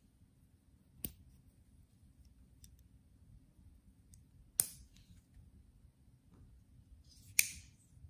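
Three sharp metallic clicks, each with a short ring, as a small titanium balisong utility knife is opened and pocket knives are handled; the second and third clicks, about a second in and near the end, are the loudest.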